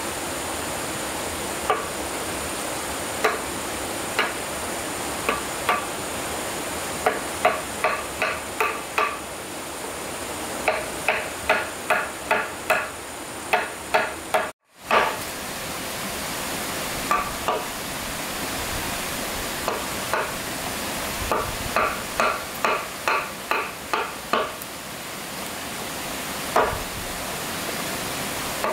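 Hammer driving nails into wood: runs of quick blows, two or three a second, each with a short metallic ring, over a steady background hiss.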